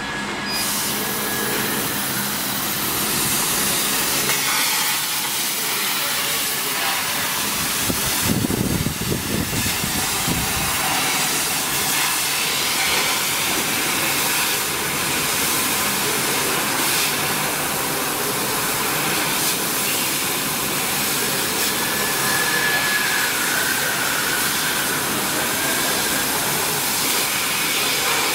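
Steady hiss of a 150 W CO2 laser cutting machine at work cutting plywood, the air assist and exhaust blowing continuously, with a short low rumble about eight seconds in.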